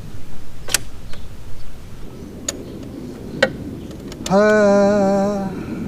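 A few sharp clicks from the outboard's remote control and throttle/shift cable linkage being worked by hand. Then a steady buzzing tone starts sharply and holds for a little over a second.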